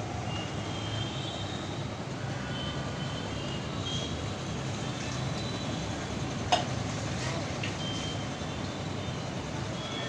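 Busy urban traffic ambience from a truck and bus yard: a steady low rumble of engines, scattered short high-pitched beeping tones, and one sharp click about six and a half seconds in.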